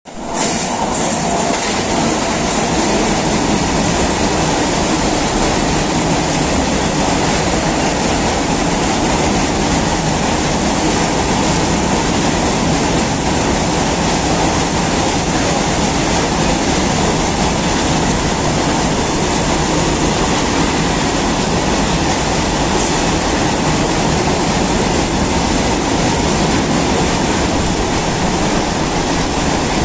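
Long freight train of open wagons running through at speed: a steady, loud rumble and rattle of steel wheels on the rails that does not let up.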